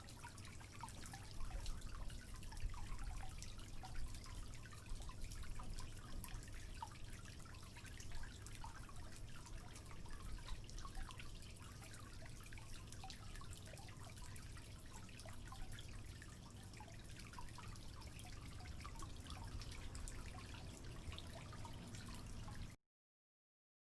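Faint, irregular soft taps and clicks of a fingertip drawing on a tablet's touchscreen, over a low steady hum. The sound cuts off abruptly to silence near the end.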